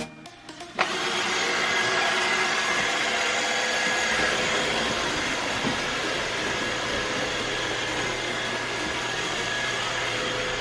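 Roomba robot vacuum running: a steady whir of its motor and brushes that starts abruptly about a second in and holds evenly.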